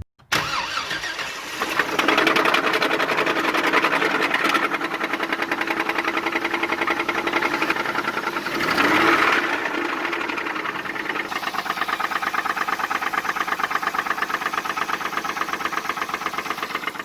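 Jeep Wrangler JK's 3.8-litre V6 starting and running with a fast, regular knock, briefly revved about halfway through: the rod knock of an engine with two spun bearings.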